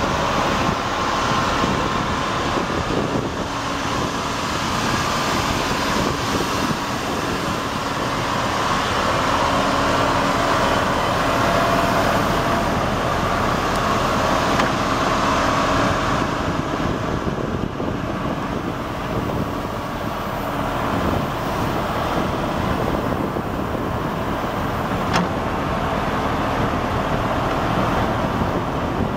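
Komatsu PC220LC-6LE excavator's Cummins 6BTA six-cylinder turbo diesel running steadily under hydraulic load as the boom, stick and bucket are worked, with a steady whine in the sound. A single sharp click comes near the end.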